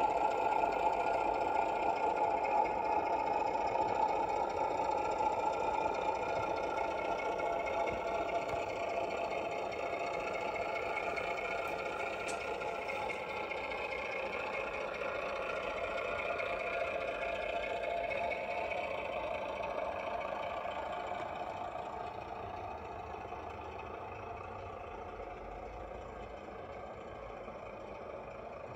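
Recorded Class 08 diesel shunter engine sound played by a 7mm model locomotive's DCC sound decoder, running steadily as the loco moves off, its note shifting in pitch midway and growing gradually fainter toward the end.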